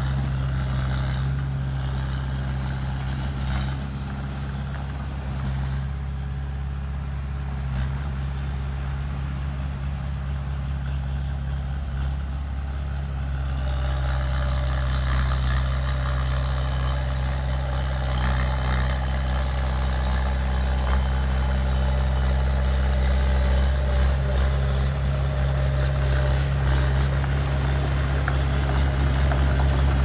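Small Komatsu crawler bulldozer's diesel engine running steadily while it pushes soil. About halfway through it grows louder, with added higher clatter and squeal as the machine and its steel tracks come close.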